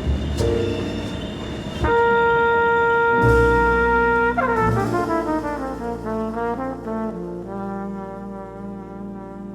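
Background music: a long held chord about two seconds in, then a run of shorter notes that slowly fades out.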